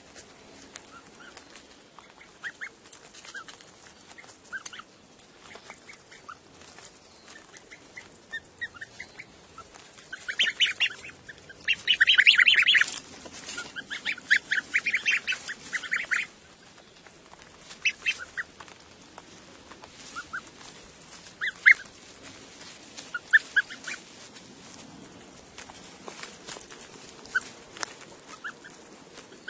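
Goslings peeping: short, high cheeps scattered throughout, with a loud, dense run of rapid calls from about ten to sixteen seconds in.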